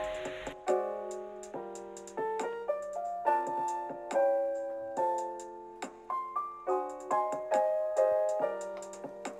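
Background piano music: gentle chords and single notes struck and left to ring, changing about every half second to a second.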